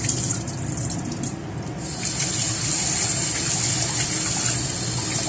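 Kitchen tap running water into a pot of rice being rinsed, a steady gushing splash that eases briefly about one and a half seconds in.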